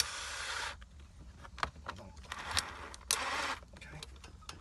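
Power drill run in three short bursts of about half a second, with clicks and knocks of handling between, while its bit is stuck in a seized shifter bolt.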